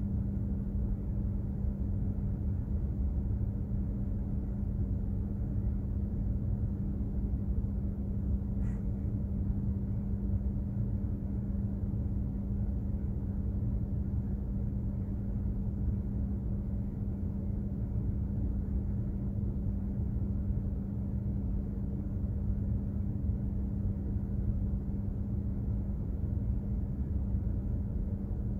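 Container ship's machinery running at sea, heard aboard: a steady low rumble with a constant hum. A faint click about nine seconds in.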